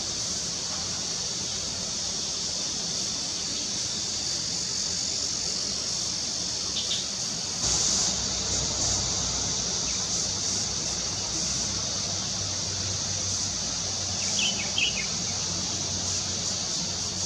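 Steady high-pitched insect chorus with a low steady hum underneath, and a few short bird chirps, once about 7 seconds in and a quick cluster near the end.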